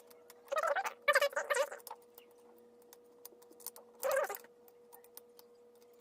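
Light metal clicks of a lock pick and tension wrench working the pins of a Guard Security model 242 padlock, with a few short vocal sounds mixed in.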